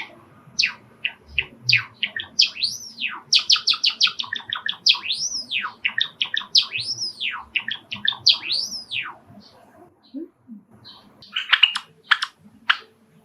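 Male sakura Java sparrow singing its song: quick runs of clicking notes broken by long whistled notes that rise and fall, four of them in a row. The song pauses about ten seconds in, then a fresh burst of clicking notes follows.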